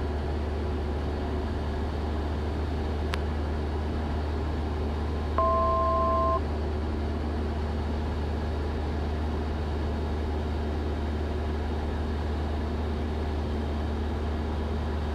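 Cessna 172 Skyhawk's engine and propeller droning steadily in the cabin, heard through the intercom. A single sharp click comes about three seconds in, and a brief two-tone beep lasting about a second sounds about five seconds in.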